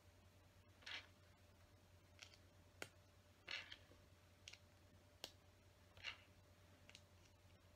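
Faint, scattered clicks and brief rattles of small plastic LEGO bricks being picked from a loose pile and snapped into place, about eight in all, at irregular intervals.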